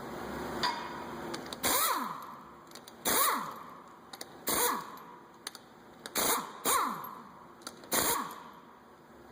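Power impact wrench spinning off the front wheel's 19mm lug nuts in about six short bursts, each ending in a falling whine as the tool winds down.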